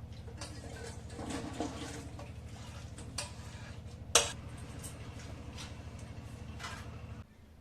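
A cooking utensil scraping and clinking against a pot or pan, with one sharp knock about four seconds in, over a steady low hum that cuts off near the end.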